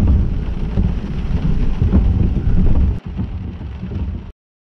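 Heavy thunder rumbling low, heard from inside a car, with rain pattering on the windscreen. About three seconds in the sound breaks off with a click and carries on quieter, then cuts to dead silence a second later.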